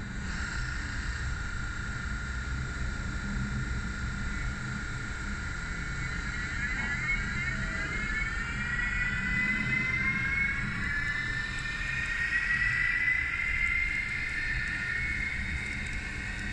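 Digital sound decoder in an N scale model train playing a running locomotive. A steady whine is heard, and from about six seconds in a set of tones rises in pitch as the sound speeds up, over a low rumble.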